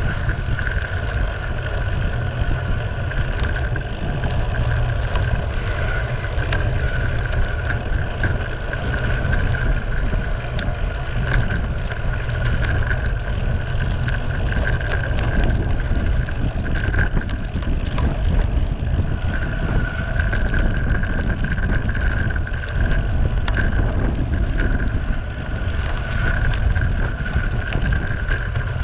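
Wind buffeting the action camera's microphone during a descent on a gravel road, with tyres crunching and rattling over loose stones. A steady high whine runs along with it and drops out for a few seconds in the middle.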